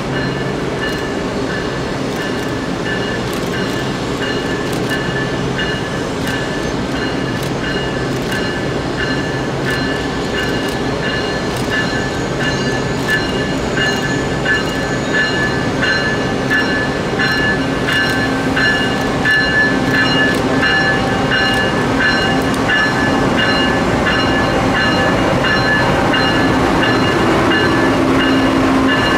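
A train rolling along the track: wheels clicking over rail joints in an even rhythm under a steady high whine, slowly getting louder.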